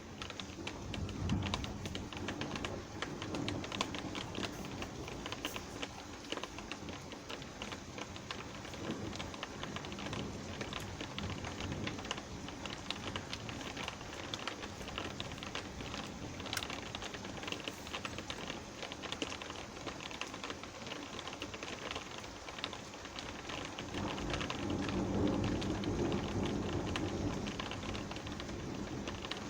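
Rain falling steadily as a dense scatter of fast, close drop ticks, with low rumbles of distant thunder swelling about a second in and again near the end.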